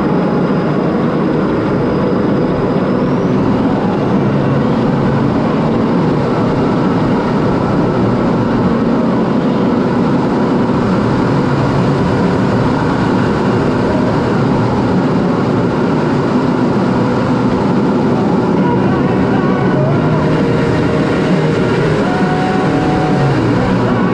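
Steady cockpit noise of a CT-114 Tutor jet in formation flight: its single turbojet engine running and air rushing past the canopy, heard from inside the cockpit.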